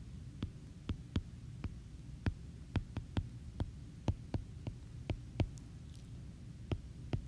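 Stylus tip tapping on a tablet's glass screen during handwriting: irregular sharp clicks, two or three a second, with a short pause near the end, over a low steady hum.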